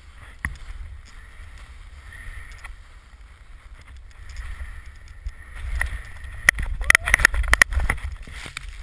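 Wind buffeting a pole-held GoPro's microphone as a snowboard rides through deep powder, with a low rumble that builds. From about halfway on, a quick run of sharp knocks and crackles as snow sprays against the camera, loudest near the end.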